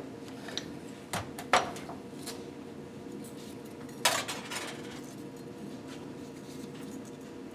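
Engine parts and hand tools being handled on a workbench during piston-ring fitting: a few sharp metallic clinks about a second in, the loudest at a second and a half, another near four seconds, over a steady low hum.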